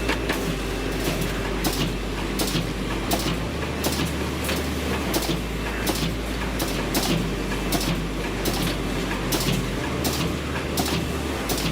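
Heavy machinery running steadily with a low hum, punctuated by irregular sharp knocks and clatter about once or twice a second.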